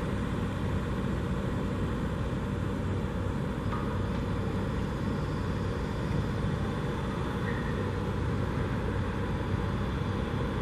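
Steady drone of road traffic, with no distinct vehicle standing out.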